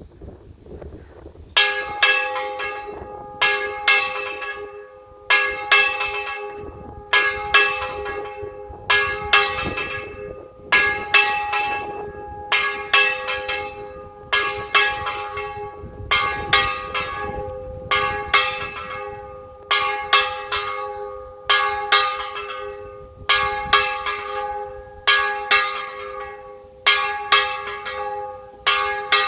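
Church bell ringing, starting about a second and a half in. The strokes come in close pairs about every two seconds, and the bell rings on between them.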